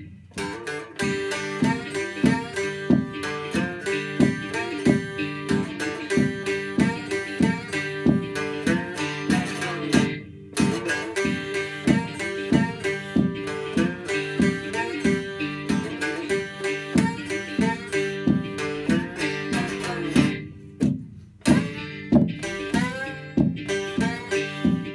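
Homemade six-string panjo guitar plucked in a rhythmic, picking tune, with a looped backing track of the same instrument repeating underneath the live part. The playing breaks off briefly about ten seconds in and again around twenty seconds.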